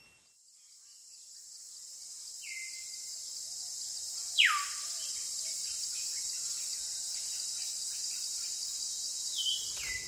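Dense, high-pitched insect chorus that fades in over the first few seconds and then holds steady. Over it a bird gives descending whistled calls: a short one about two and a half seconds in, a loud one sweeping far down just after four seconds, and a short one near the end.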